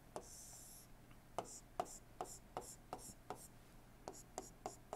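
Faint stylus taps and short scratches on a tablet, a quick run of pen strokes about two to three a second as hatching lines are drawn.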